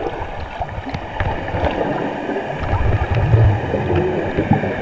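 Muffled underwater sound picked up by a GoPro submerged in a swimming pool: rushing, bubbling water with a deeper rumble about three seconds in.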